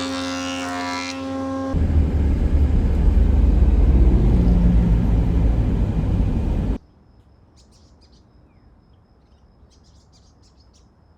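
A loud machine runs with a heavy low rumble and cuts off suddenly about seven seconds in. It leaves faint bird chirps and a steady high insect trill.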